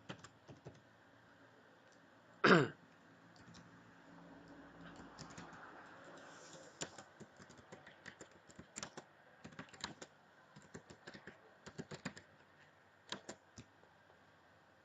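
Typing on a computer keyboard in irregular bursts of key clicks. About two and a half seconds in, one brief loud vocal sound, like a cough, cuts across the typing.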